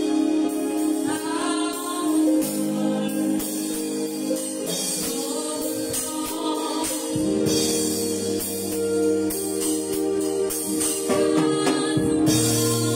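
A woman singing a gospel worship song over an electronic Yamaha keyboard holding sustained chords; lower bass notes come in about halfway through.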